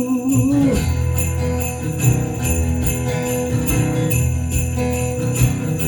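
Live band music with sleigh bells shaken in a steady beat, about twice a second; a held sung note ends within the first second.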